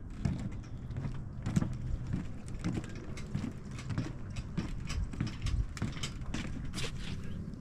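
Footsteps on a floating dock, with irregular knocks and squeaks from the dock sections shifting underfoot.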